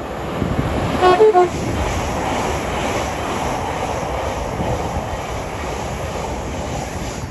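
A train sounds a short horn of two alternating notes about a second in while passing through the station at speed, then a steady loud rush of wheels and wind on the track that eases slightly near the end.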